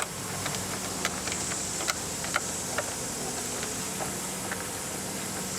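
Light, irregular clicks and ticks of a #10 screw being turned by hand into a plastic mud flap and nylon clip, over a steady hum and faint hiss.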